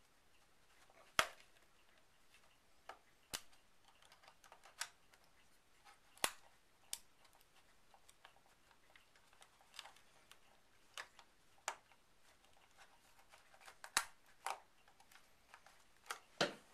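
Sharp, irregular clicks and taps of plastic credit cards being worked into the joint between a Bachmann 4CEP model train power car's plastic body shell and its chassis, prising the shell off its retaining lugs. The loudest clicks come about a second in and near the end.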